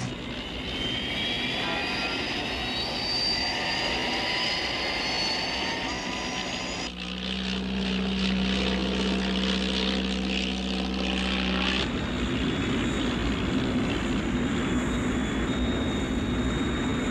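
Tiger Moth biplane's propeller engine running, with high whining tones that glide in pitch over the first several seconds. The sound changes abruptly about seven seconds in, to a steady drone, and again about twelve seconds in, to an even rushing noise.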